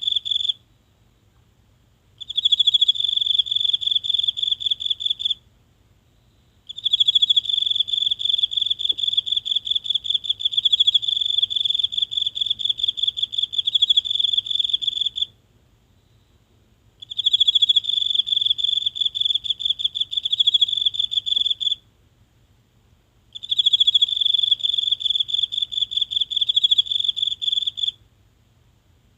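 A single insect singing a high, rapidly pulsing trill in bouts of a few seconds, each broken off by a pause of a second or two.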